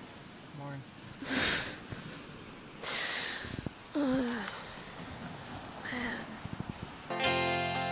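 Insects, crickets by their sound, keeping up one steady, high-pitched shrill tone, with a few soft swells of noise and a brief voice. It cuts off near the end as guitar music starts.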